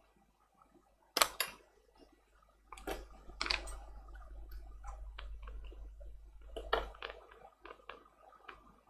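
Hands working on the parts of a tablet: a sharp click about a second in, then several seconds of continuous scraping and rustling with scattered clicks, another knock about seven seconds in, and a few small ticks near the end.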